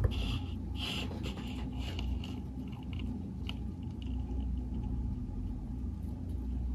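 A low steady hum with a few faint rustles and a light click as hands handle a clear plastic cup.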